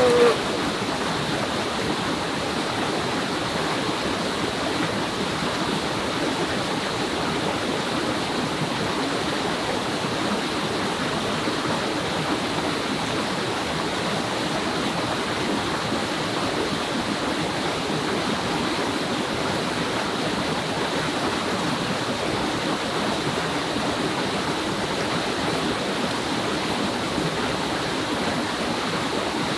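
A small forest stream running over rocks, a steady, even wash of water that does not change.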